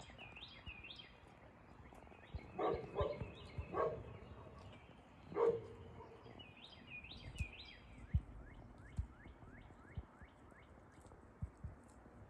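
Birds singing, with repeated high chirps and a run of quick rising whistles. Four short mid-pitched animal calls come between about 2.5 and 5.5 seconds in, the last the loudest. A few low thumps follow later.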